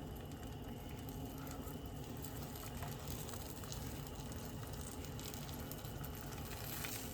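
Quesadilla frying in melted butter in a hot pan on the stove: a faint, steady sizzle.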